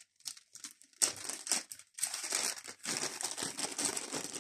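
Thin plastic bags crinkling and rustling as they are handled, in short bursts at first and then almost without a break from about two seconds in.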